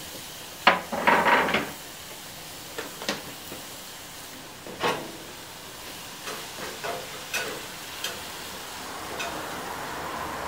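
Rump steaks searing on the hot grate of a Weber gas grill: a steady sizzle, with sharp clicks and clatters of metal tongs, a quick cluster of them about a second in and single ones scattered after. Picked up by the camera's own microphone, the clip-on mic having been left off.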